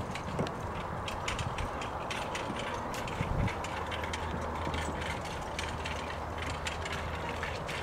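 A pony-drawn carriage rattling and clicking as it is driven along, its wheels and metal fittings giving quick irregular clicks over a steady low hum, with a knock at the start and a heavier thump about three seconds in.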